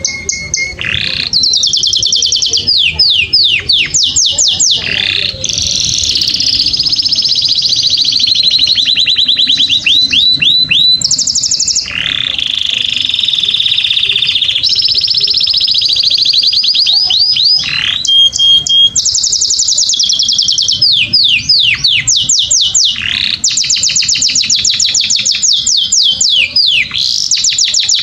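Canary singing a long, nearly unbroken song of fast trills and rolling runs, strung together from quick repeated chirps and sweeping whistled notes.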